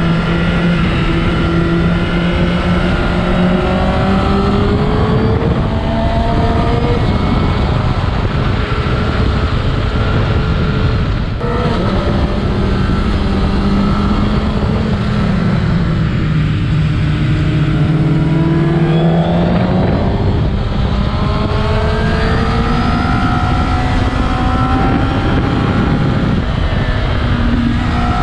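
Honda CBR1000RR Fireblade's inline-four engine heard from the rider's seat, its pitch climbing and dropping several times as the throttle is opened and closed, with a brief break about eleven seconds in. A steady rush of wind noise runs under it.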